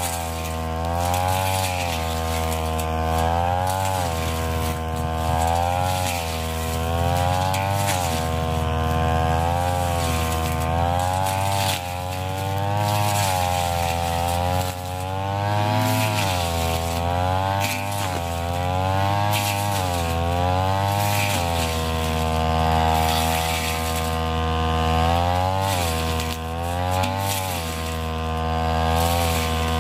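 Ryu backpack brush cutter's two-stroke engine running at high speed while cutting thick tall grass. Its pitch dips and climbs back every second or two as the blade bites into the grass and frees again.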